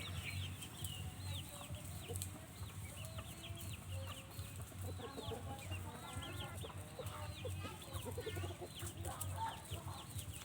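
Chickens clucking, with many short, high, falling peeps throughout and a low pulsing hum underneath.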